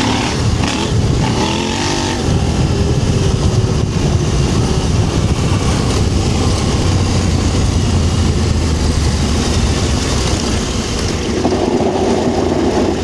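KTM 790 Adventure R's parallel-twin engine running under throttle as the bike rides through soft sand, with a steady rush of wind and tyre noise over it.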